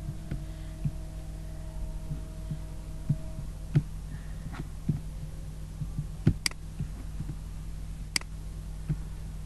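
Steady low electrical hum from the recording setup, with a few sharp mouse clicks scattered through, the clearest about four, six and eight seconds in.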